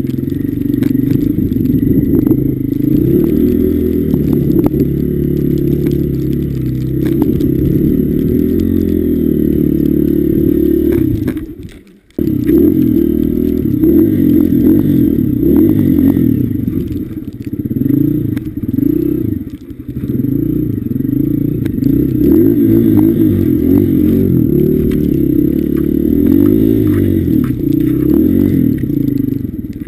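Honda CRF150F dirt bike's single-cylinder four-stroke engine running and revving up and down under throttle. The sound cuts out briefly about twelve seconds in.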